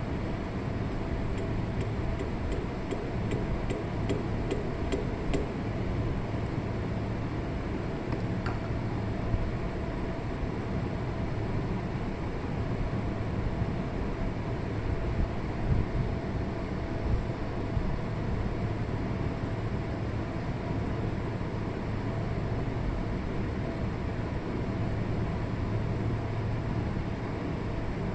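Suzuki Jimny running, a steady engine and road noise, with a short run of faint ticks in the first few seconds.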